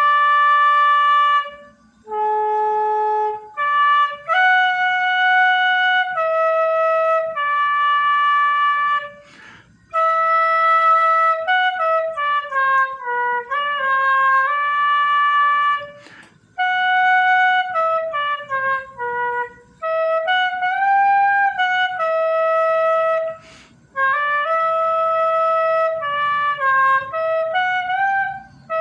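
Homemade gaita, the fife of the Bahian sertão, built from scrap and tuned to A major, played as a simple tune: held notes and short stepwise runs in phrases, with brief breaks for breath.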